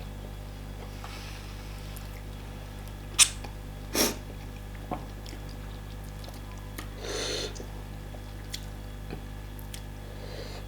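Mouth noises of eating fufu and soup: a few sharp smacks a little past the middle and a short slurp about seven seconds in, over a steady low hum.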